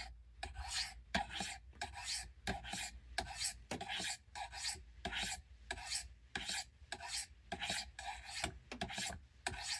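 Victorinox Evoke knife blade being stroked over a Spyderco sharpener's rods: a steady series of short scraping strokes, about three a second. The blade is being touched up because it came from the factory without a decent edge.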